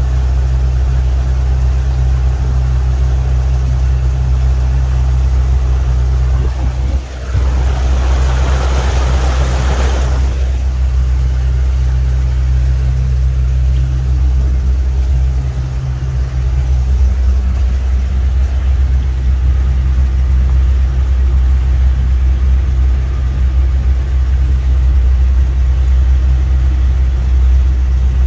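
Birchwood 22 river cruiser's engine running steadily at slow cruising revs, about 1500 rpm, a deep even drone. About seven seconds in a rushing noise swells for a few seconds and then stops.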